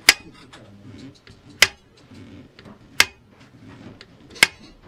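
Throttle butterflies of a Kawasaki ZZR1100's four-carburettor Keihin CVK bank snapping shut on their return spring as the linkage is opened and let go, giving four sharp metallic clicks about a second and a half apart.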